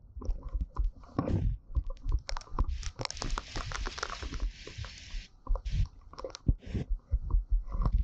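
Gusty tropical-storm wind buffeting the microphone in irregular low rumbles, with raindrops tapping and crackling close by on umbrellas and the camera. A stretch of rain hiss runs from about three seconds in to just past five.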